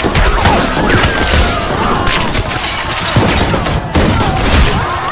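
Massed rifle fire from a line of soldiers: shots overlapping in rapid volleys, with people screaming and wailing throughout.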